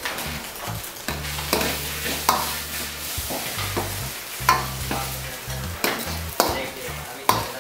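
A steel ladle stirs thick, bubbling chicken curry in a kadai over a steady sizzle. It scrapes the pan and knocks against it about six times.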